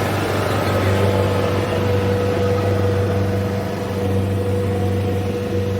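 Rice harvester's engine running steadily: a continuous low drone with a steady whine.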